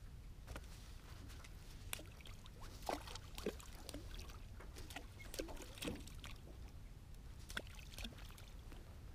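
Small waves lapping against a small boat's hull, making irregular little plops and trickles over a steady low wind rumble on the microphone.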